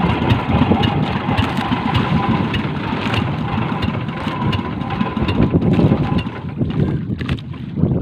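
Small fishing boat's engine running steadily, easing off about two-thirds of the way through.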